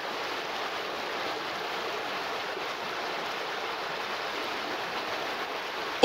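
Flowing water from a stream or river: a steady, even rush with no breaks.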